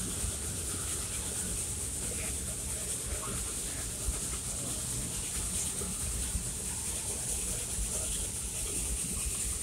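Steam train rolling along the track, heard from an open passenger car: a steady low rumble with a constant high hiss over it.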